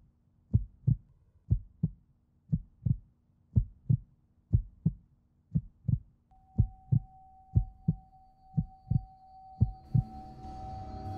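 Heartbeat sound effect: pairs of low thumps, lub-dub, about once a second over a faint low drone. A thin high tone joins about six seconds in, and a hiss swells near the end.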